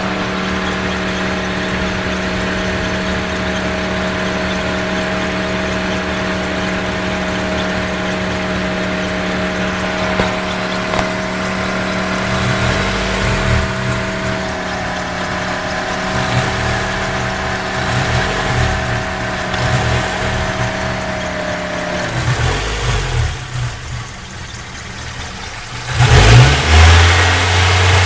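Toyota 4A-GE 16-valve four-cylinder engine heard from the engine bay, held at steady raised revs, the range around 4,000 rpm where the owner hears an unexplained weird sound. About 22 seconds in the revs fall away, and near the end a sudden louder burst gives way to a lower steady engine note.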